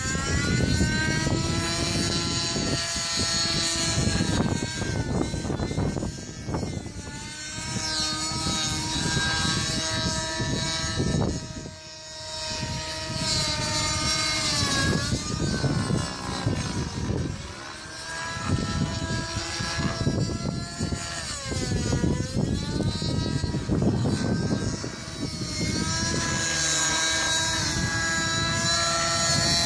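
TSA Infusion 600N Pro nitro RC helicopter's two-stroke glow engine and rotors running in flight. The pitch keeps swooping up and down as it is thrown through manoeuvres, with a couple of sharp drops and brief dips in loudness.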